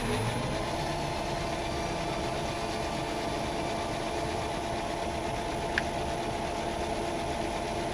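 Myford lathe running steadily with an even motor-and-drive hum, with one light tick about six seconds in.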